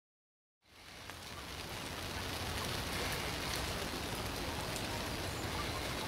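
Steady rain hiss that fades in out of silence about a second in, with a few faint ticks scattered through it.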